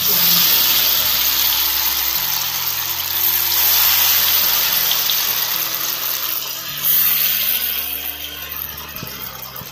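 Batter-coated paneer pieces deep-frying in hot oil in a wok: a loud, steady sizzling hiss. It swells as a piece goes into the oil at the start, surges again about seven seconds in, then dies down toward the end.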